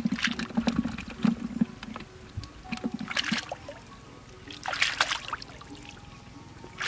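Hands sloshing and splashing in shallow muddy water while groping through the mud for fish, with two louder splashes about three and five seconds in.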